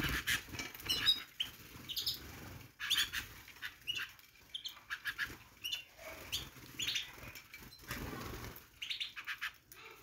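Small flock of canaries feeding around a hand-held plate: irregular brief wing flutters as birds hop and land, with a few short high chirps.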